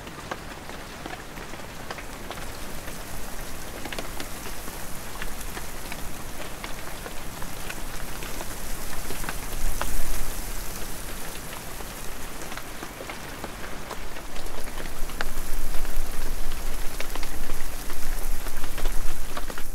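Heavy rain falling steadily with distinct drops, mixed with gusting wind. The sound swells louder about halfway through and again over the last few seconds.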